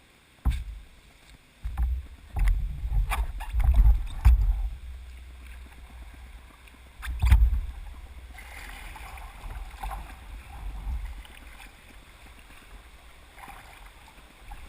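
Kayak being paddled through a gap in a small river weir: water splashing and paddle strokes, with a run of heavy low thumps in the first half, the loudest about seven seconds in, then steadier quieter water.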